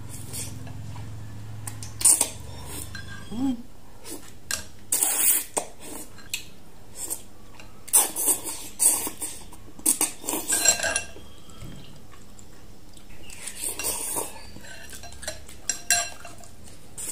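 Eating sounds: chewy noodles slurped up from a soup bowl in a string of short, loud bursts, with a metal spoon and chopsticks clinking and scraping against a glass bowl in between.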